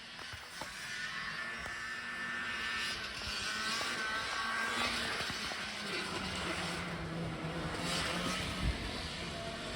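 A motor vehicle's engine running, building up over the first few seconds and then holding steady, with a low hum partway through.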